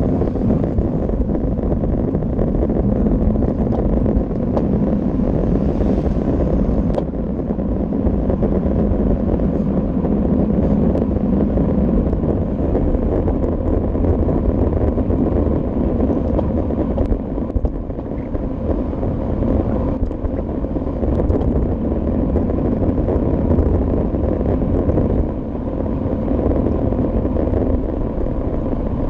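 Steady low rush of wind buffeting a bike-mounted camera's microphone, mixed with tyre and road noise, while cycling along a road at speed.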